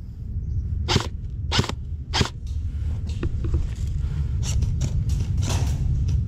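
Gloved hands handling an airsoft rifle: three short, sharp rasping strokes about half a second apart, then softer scraping, over a steady low rumble.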